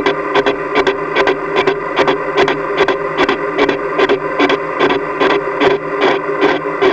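Metal lathe running under a facing cut on a plummer block base casting. A steady gear whine is crossed by a regular tick several times a second, as the cutting tool strikes the casting on each turn. The cut is interrupted because the casting sits out of square in the chuck, so the tool is only taking off one edge.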